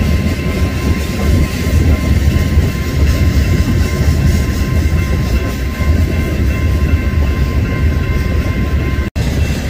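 Freight train of covered hopper cars rolling past: a steady low rumble of steel wheels on rail, with a thin steady high whine over it. The sound cuts out for an instant near the end.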